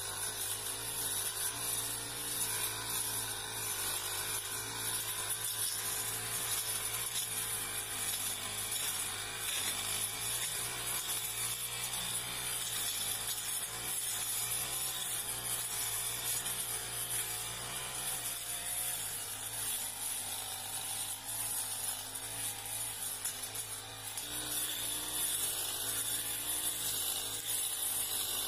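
Backpack brush cutter's engine running steadily at cutting speed, its pitch wavering slightly as the metal blade slashes through grass and undergrowth.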